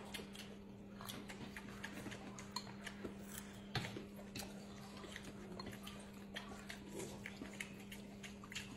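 Eating sounds of two people having noodles: chewing and many small clicks of chopsticks against a plate and a stainless steel bowl, scattered irregularly, over a steady low hum.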